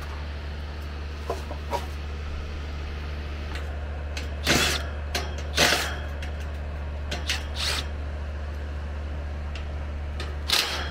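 Cordless drill-driver running out the sheet-metal screws of an AC condenser's cabinet panel in short bursts, the loudest about four and a half, five and a half and ten and a half seconds in, over a steady low hum.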